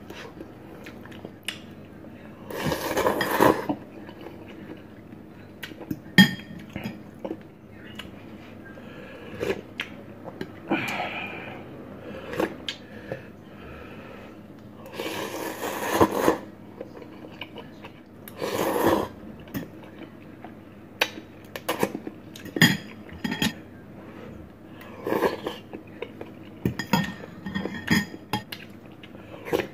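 Metal fork and spoon clinking and scraping against a ceramic noodle bowl, with several louder, second-long slurps of noodles in between.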